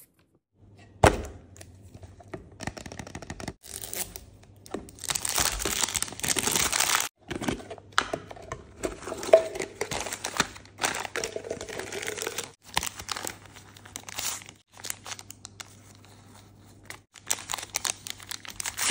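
Hands tearing open and crinkling plastic and foil toy packaging: a sharp snap about a second in, then irregular bursts of rustling and ripping.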